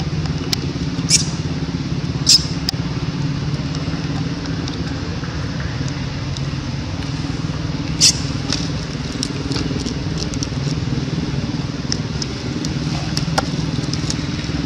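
A steady low motor hum, with a few short sharp clicks about one, two and eight seconds in.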